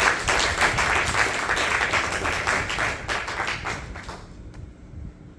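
Audience applauding for a graduate whose name has just been called. The clapping is loud at first, thins out, and dies away about four seconds in.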